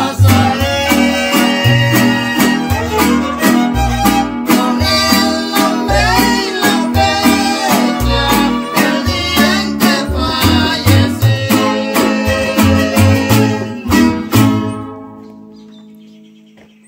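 String-band music of violins over strummed guitars and deep plucked bass notes, played at a steady beat. About fifteen seconds in, the band stops on a final chord that rings out and fades away.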